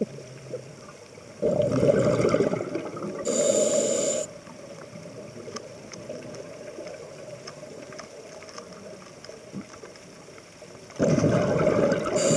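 Scuba diver breathing through a regulator, heard underwater: a burst of exhaled bubbles rumbling for about two seconds, then a short hiss of the regulator on the next breath, with a faint water hiss between breaths. A second exhalation of bubbles starts near the end.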